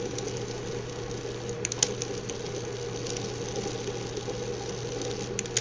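A steady low mechanical hum, with a few faint clicks about two seconds in and again near the end.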